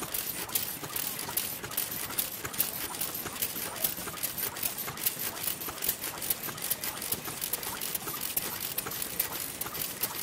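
Old Japanese Noda stationary kerosene engine running, its valve gear and ignition making a quick, uneven ticking and clatter, mixed with other old engines running at the same time.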